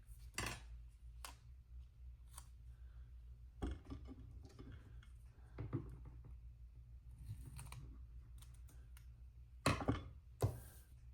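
Scissors snipping a small piece of paper or tape, with light rustling as it is handled; two louder snips come near the end.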